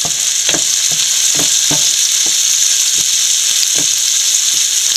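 Sliced onions, shallots, green chillies and garlic sizzling in hot oil in a nonstick frying pan, with a steady hiss. A wooden spatula stirs them, scraping and knocking against the pan repeatedly.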